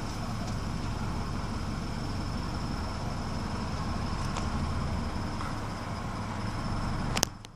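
Subaru BRZ flat-four engine idling roughly, with an uneven low rumble and a steady, thin high-pitched chirp over it like crickets. A sharp click comes near the end, and the sound drops away.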